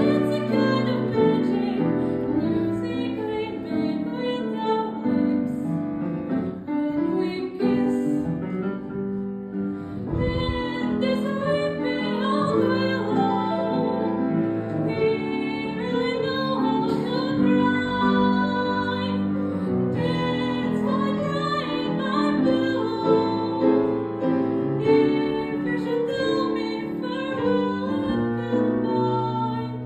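A girl singing a solo song with instrumental accompaniment, her voice carrying the melody throughout.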